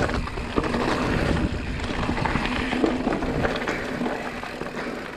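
Mountain bike riding down a dirt trail: wind rushing over the microphone and tyres rolling on dirt with a steady hum, with scattered clicks and knocks as the bike goes over bumps. The noise dies down gradually near the end.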